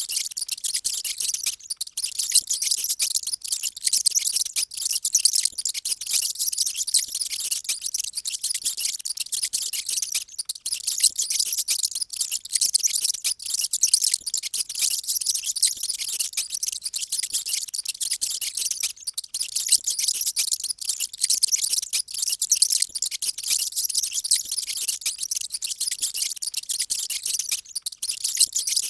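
Many mice squeaking at once: a dense, unbroken chatter of very high-pitched squeaks.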